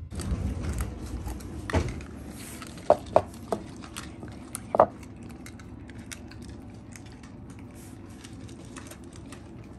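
Cat food bowls knocking and clattering on a wooden floor as they are set down, several sharp knocks in the first half. Then a steady run of small crisp clicks as cats crunch dry food.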